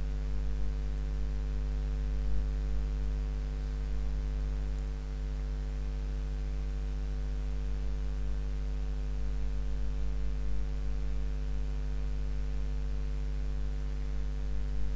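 Steady low electrical mains hum with a few higher hum tones and a light hiss, unchanging throughout.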